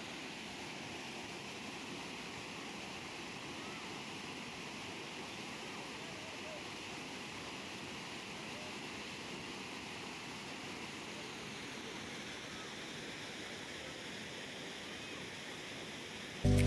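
Athirappilly waterfall's falling water: a steady, even rush of water.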